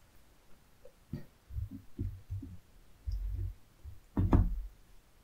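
Handling noise at the table as chopsticks and hands assemble a lettuce wrap: a run of soft, low thumps, then a sharper, louder knock about four seconds in.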